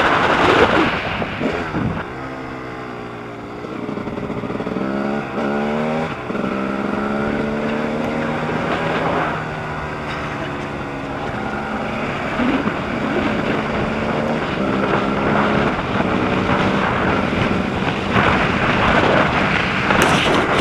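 Dirt bike engine running hard under the rider, its note rising in pitch and dropping back several times as the bike accelerates and shifts. Wind rushes over the on-board microphone, loudest at the start and again near the end.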